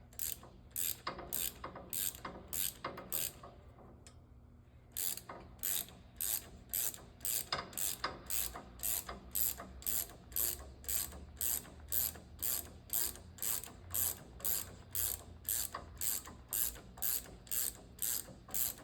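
Hand ratchet wrench being worked back and forth on a nut, its pawl clicking in steady strokes about two a second, with a short pause around four seconds in.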